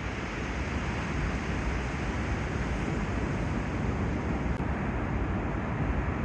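Steady rushing of wind and surf at the seashore: an even noise with heavy low rumble from wind on the microphone.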